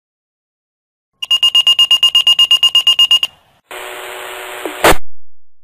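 Fire department pager alert from a Motorola Minitor: after a moment of silence, rapid high-pitched beeping for about two seconds. A steady buzzing radio tone with hiss follows and ends in a loud crackle, as the dispatch channel opens.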